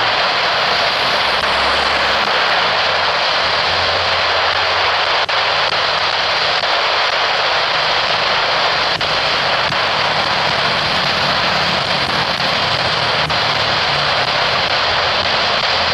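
Jet airliner engines running with a steady, loud roar and a thin high whine held throughout.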